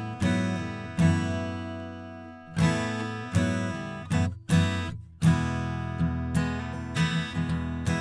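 Steel-string acoustic guitar strumming chords, each stroke ringing on. It is picked up by an AT4050 condenser microphone through a Universal Audio Volt 276 interface. The interface's Vintage preamp mode is switched on partway through, which the player hears as a brighter, more three-dimensional tone.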